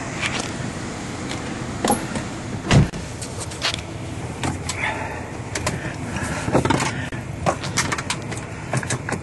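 VW Passat engine running at idle, heard from the cabin, with a scatter of short clicks and knocks from handling inside the car. The loudest is a low thump about three seconds in.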